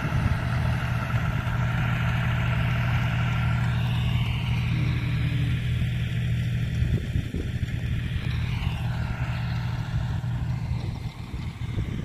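Tractor's diesel engine running steadily as it pulls a levelling blade across a ploughed field, a low continuous hum that dips a little near the end.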